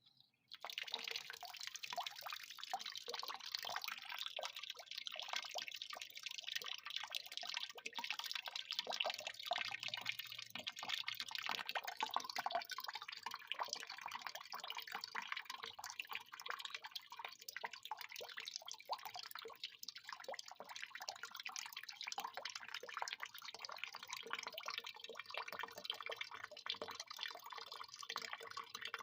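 Water pouring in a steady stream and splashing, starting about half a second in.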